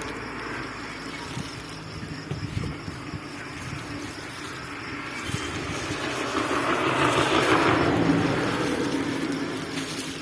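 A vehicle passing by, its noise swelling to a peak about seven to eight seconds in and then fading, over a steady background hum.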